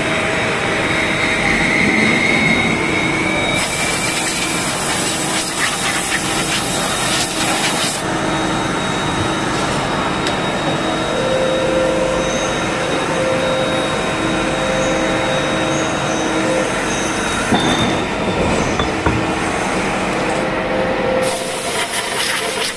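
Steady machine-shop din from running CNC turning machinery: several steady hums, one pulsing on and off, and a faint rising whine in the first few seconds. A loud rushing hiss comes in about four seconds in, stops about eight seconds in, and starts again near the end.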